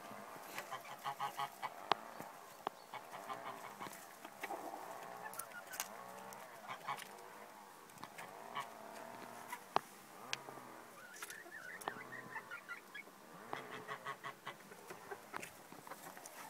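Dutch bantam chickens clucking in runs of short, quickly repeated calls, with a few sharp clicks.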